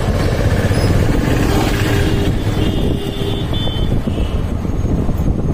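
Motorcycle engine running at low street speed with road and wind rumble on a chest-mounted microphone, steady throughout. A few short high beeps sound between about two and four seconds in.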